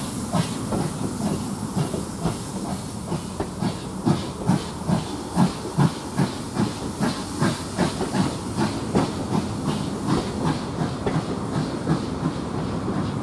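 Heritage railway passenger coaches rolling past close by, their wheels clicking over the rail joints in a steady rhythm of about three clicks a second, over a continuous rushing hiss.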